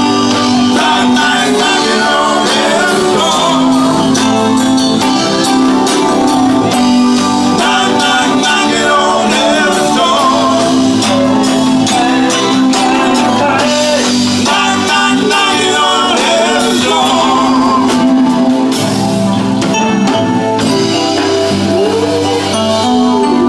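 A live band of electric guitar, drums and keyboard playing a song through PA speakers, with a lead vocal sung over it.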